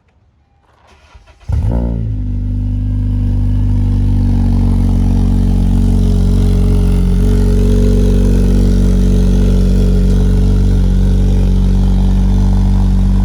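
2015 Honda Civic Si's 2.4-litre four-cylinder engine starting about a second and a half in, then idling steadily through a freshly installed Full Race downpipe and aftermarket exhaust.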